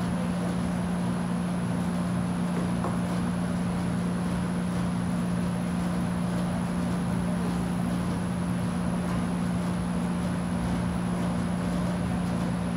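Steady low mechanical hum with a faint high-pitched whine above it.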